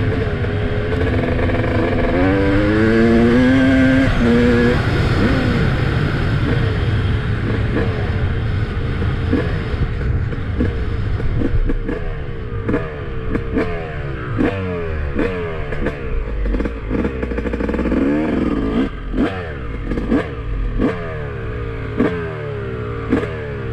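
2007 Yamaha YZ250's single-cylinder two-stroke engine running loud. It revs up in rising pitch over the first few seconds, then from about ten seconds in it is blipped in a string of short sharp revs, each falling back in pitch.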